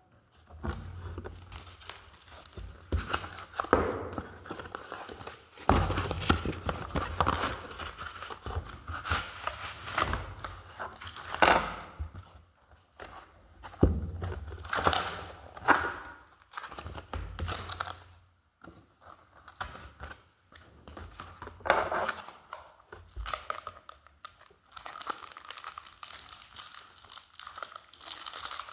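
Trading card pack packaging being torn open and crinkled by hand, in irregular bursts with a few sharp louder rips and short pauses between.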